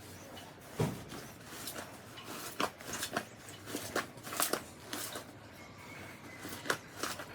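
Slime being squeezed and worked by hand, giving irregular sharp pops and crackles, the loudest about a second in.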